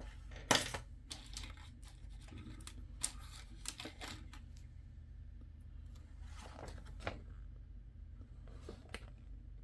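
Plastic model-kit parts being handled, with scattered sharp clicks and brief rustling; the loudest click comes about half a second in.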